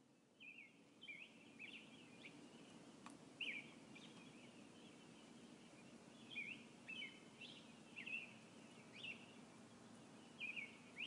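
Faint birdsong: short chirps and quick whistled slurring notes, a couple every second, starting about half a second in, over a low steady background hum.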